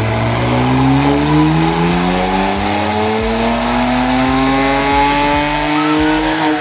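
BMW N54 twin-turbo 3.0-litre straight-six in a 335i at wide-open throttle on a dyno, pulling through a gear. The engine note rises steadily in pitch as the revs climb.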